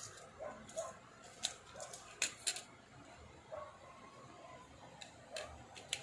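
Small hard-plastic parts being handled: a scatter of light clicks and taps as a jukebox keypad's plastic receiver unit and its cable are picked up and moved.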